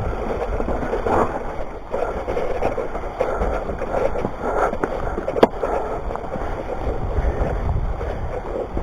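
Mountain bike rolling fast over a wet dirt trail: a steady rush of tyres on the ground and wind, with small rattles and knocks. There is one sharp knock about five seconds in.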